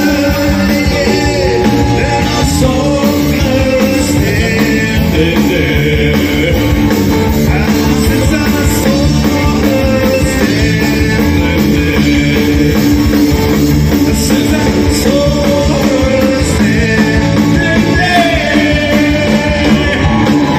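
Live rock band playing an upbeat rock and roll song, a man singing lead over electric guitar, bass guitar, keyboard and drums.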